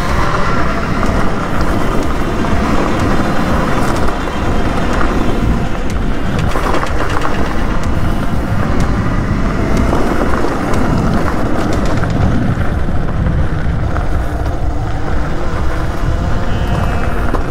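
Steady riding noise from a Talaria Sting R (TL4000) electric dirt bike on a gravel trail: tyres rolling over loose stones, with a dense rushing noise on the action camera's microphone and no engine sound.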